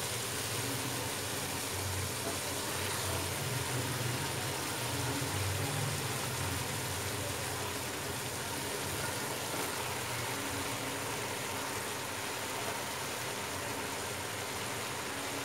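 Steady cooking noise of a beef and vegetable stir-fry sizzling in a pot on the stove: an even hiss over a low hum, with no separate clatters.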